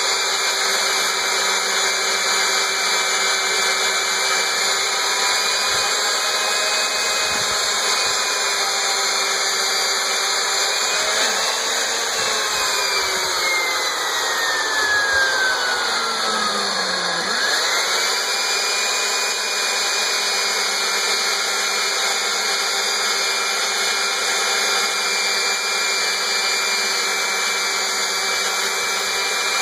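Black & Decker model 45 3/4-inch Super Duty electric drill running continuously, boring a 1-inch auger bit into a thick oak slab. Its motor whine holds steady, then about twelve seconds in the pitch sinks for about five seconds as the motor slows, and it climbs quickly back to full speed.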